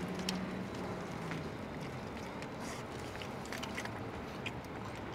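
Faint chewing of a mouthful of cheeseburger: soft wet mouth sounds and small scattered clicks over a low steady background.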